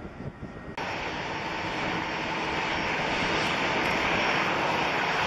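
Boeing 777-200ER's twin jet engines running as the airliner taxis: a steady jet whine and rush that comes in abruptly about a second in and grows slightly louder.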